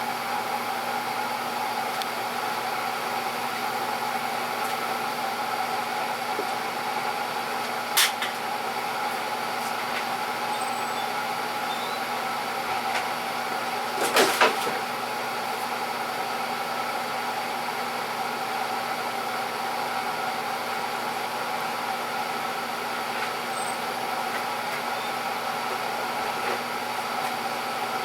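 Battery charger running steadily at about 40 amps to power an electrolysis rust-removal bath, with a continuous hum carrying several fixed tones. A sharp click sounds about 8 seconds in, and a quick cluster of knocks about 14 seconds in.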